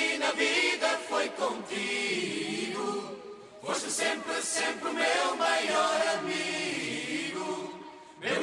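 Background vocal music: voices singing, dipping briefly about three seconds in and again near the end.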